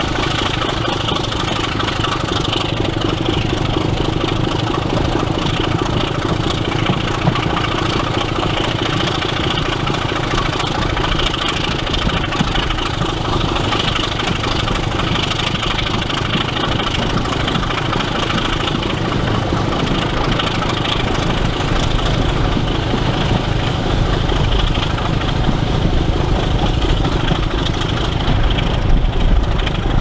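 Sulzer six-cylinder diesel engine of a Class 25 locomotive working steadily as it hauls the train, heard from a window of one of its coaches. The low rumble grows heavier in the second half.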